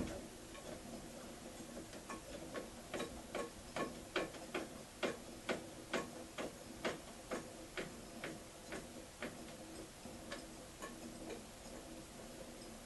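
Märklin 4097 model steam engine unit running slowly on steam from a homemade boiler, giving regular ticking beats about two a second. The beats grow fainter and a little slower in the second half.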